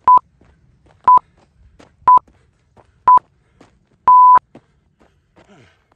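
Workout interval timer counting down: four short beeps one second apart, then a longer beep marking the end of the interval.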